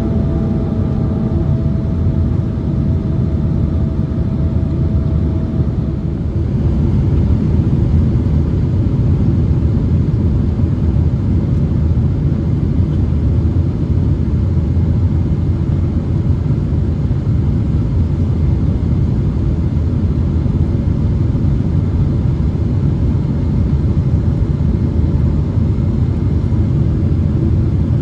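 Steady, loud cabin rumble of a Boeing 777-200 on approach with its flaps extended: engine and airflow noise heard from inside the cabin. A thin steady whine rides over it for the first several seconds, and the rumble grows slightly louder about six seconds in.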